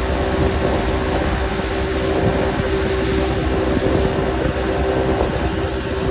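Mercury 60 outboard motor running steadily at speed under the load of towing a banana boat, a continuous engine hum mixed with the rush of wind and the boat's wake.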